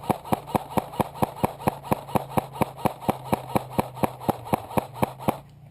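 Airsoft gun firing a long, even string of shots, about four or five a second, with a steady hum under them, stopping abruptly near the end.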